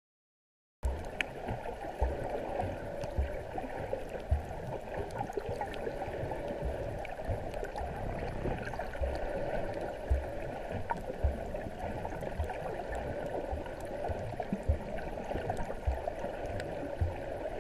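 Water sloshing and gurgling around a handheld camera held at the surface, muffled as if partly underwater, with irregular low knocks of water against the camera. It begins about a second in.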